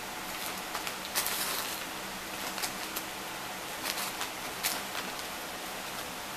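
Brown sugar being sprinkled by hand: several short, soft rustles and patters over a steady hiss.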